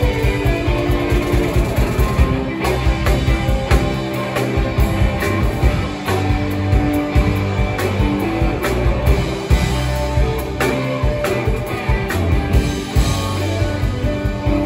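Live rock band playing an instrumental passage: electric guitars over a steady drum-kit beat.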